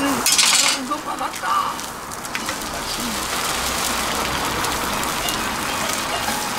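An egg frying on a hot oiled flat-top griddle: a loud burst of sizzling as it hits the oil in the first second, settling into a steady sizzle.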